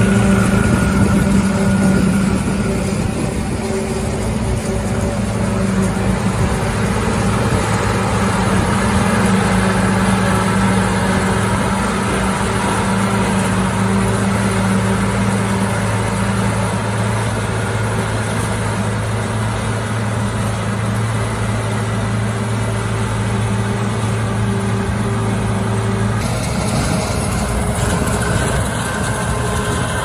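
Heavy diesel engines of a self-propelled forage harvester and the tractor hauling alongside it running steadily under load while chopping corn, with a low, even hum. The sound shifts near the end.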